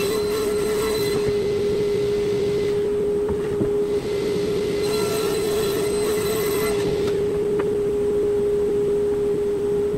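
Table saw running with a steady high whine while a plywood panel is fed through the blade and ripped.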